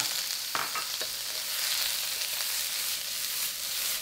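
Shredded carrot, green pepper and wood ear fungus sizzling in hot oil in a wok. They are stir-fried with a wooden spatula that knocks and scrapes against the pan a few times.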